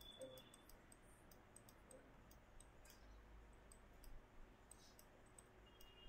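Near silence with faint, irregular clicks of a computer mouse button as strokes are drawn with the mouse.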